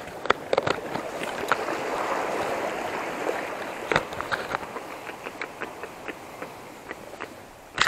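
Small sea waves washing over rocks and seaweed, with a swell of rushing water that rises about a second and a half in and fades after three seconds. Scattered light clicks run through it, and there is a sharp knock at the very end.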